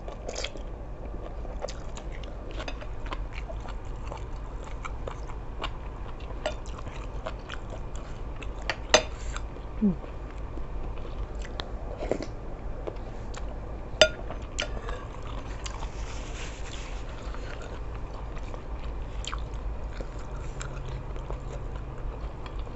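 A person eating seafood suki close to the microphone: chewing and biting with many small wet mouth clicks, and a few sharper clicks standing out about nine and fourteen seconds in. A steady low hum runs beneath.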